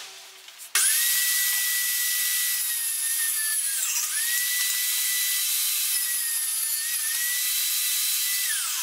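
Table saw running: it starts suddenly under a second in with a steady high motor whine, dips in pitch and recovers midway as a pallet slat is fed through the blade, and the whine falls away near the end as the saw is switched off and spins down.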